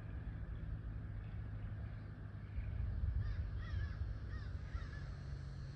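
A bird gives a run of about six short calls in quick succession, starting about three seconds in, over a steady low rumble.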